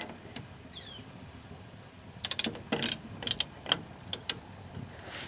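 Sharp metal clicks and clinks of a large hub-nut socket being fitted onto the lock nut of a Ford F250's rear axle hub, ready for a torque wrench. There is one click at the start and a quick cluster of them about two to three and a half seconds in.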